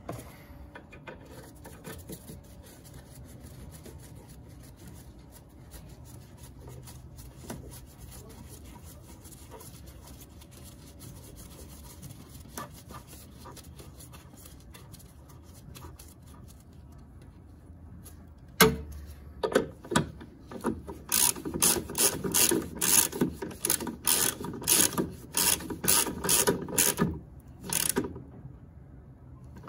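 Hand socket ratchet turning a bolt at the upper engine mount. There are faint handling noises at first, a sharp knock a little past halfway, and then several seconds of quick runs of ratchet clicks near the end.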